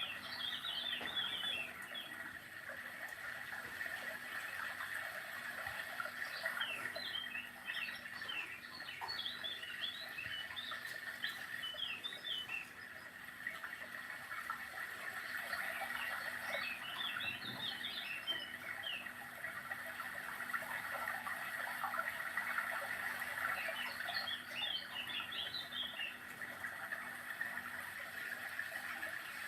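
Birdsong ringtone on a Samsung GT-C6712 phone, played through its speaker: clusters of quick high chirps come every few seconds over a steady rushing background.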